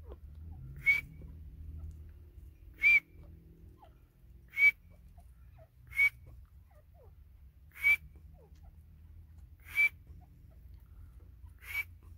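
White francolin (teetar) giving a short, sharp whistled call, repeated seven times at a steady pace of about one every two seconds.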